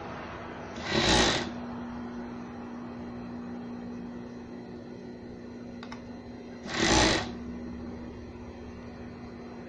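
Industrial overlock (serger) machine humming steadily, with two short bursts of stitching, about a second in and again about seven seconds in.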